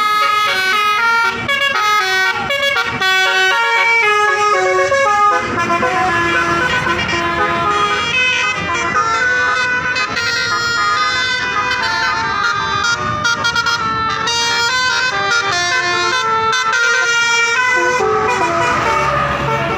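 Basuri multi-tone 'telolet' bus horn playing a fast tune of short stepped notes, several pitches sounding together.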